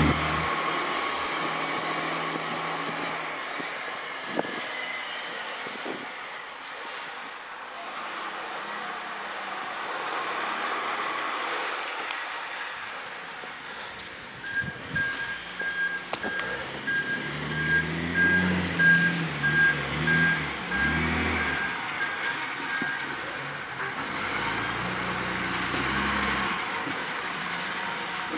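Garbage truck engine running, growing louder in surges through the second half. A regular beeping warning alarm sounds through the middle stretch.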